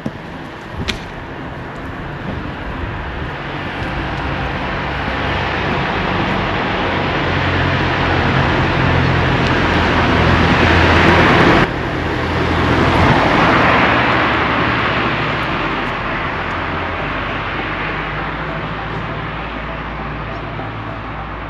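Road traffic passing close by: tyre and engine noise builds over several seconds to a peak about halfway through, drops off suddenly, swells once more and then fades away.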